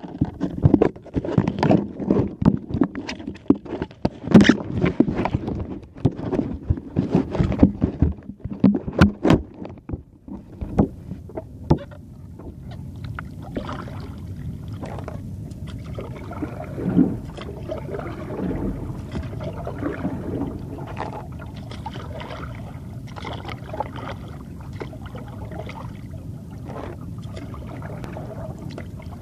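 Paddling on a stand-up paddleboard, heard through a phone in a waterproof case hung around the paddler's neck: irregular knocks and rubbing for about the first ten seconds, then a steadier wash of water and paddle-stroke noise.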